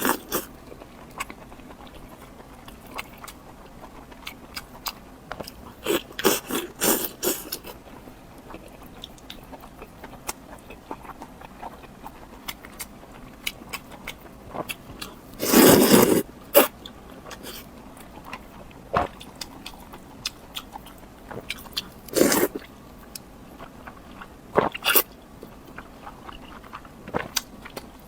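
Close-miked eating: bites, crunching and chewing with scattered small mouth clicks, broken by a few louder crunchy bites, the loudest about sixteen seconds in.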